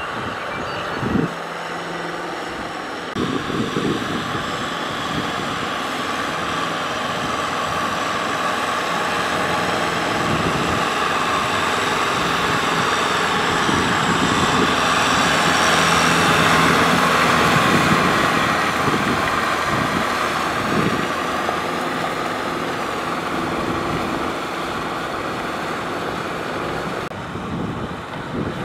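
Kubota M6040SU tractor's four-cylinder diesel engine running steadily under load as it pulls a tiller through wet paddy mud. It grows louder towards the middle as the tractor comes close, then eases off as it moves away.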